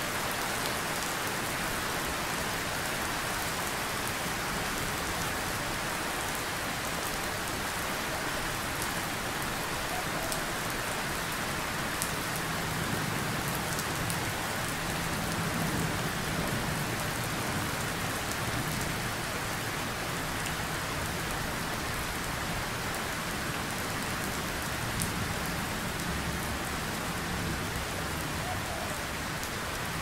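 Steady rain falling, an even hiss with no break. Low rumbles of distant thunder swell beneath it in the middle and again later on.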